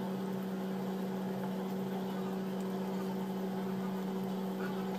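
A steady low hum with a faint hiss beneath it, even and unchanging.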